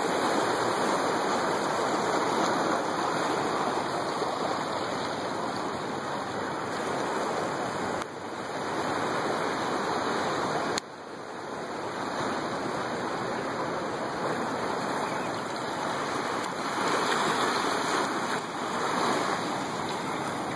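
Steady rushing noise of surf washing onto a sandy beach. The sound drops abruptly twice, about 8 and 11 seconds in, then carries on.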